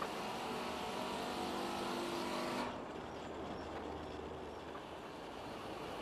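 A motor running with a steady hum, which cuts off about two and a half seconds in, leaving a quieter steady rumble.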